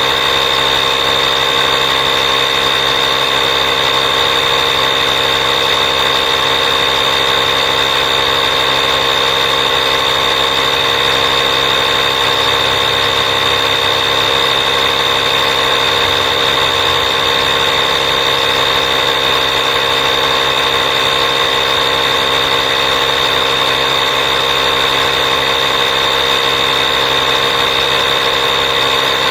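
A machine running steadily, a loud, even mechanical drone with a high whine that does not change for the whole stretch.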